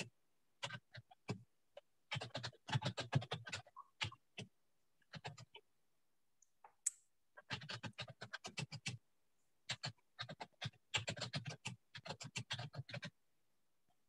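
Typing on a computer keyboard: several runs of quick keystrokes with short pauses between them, stopping about a second before the end.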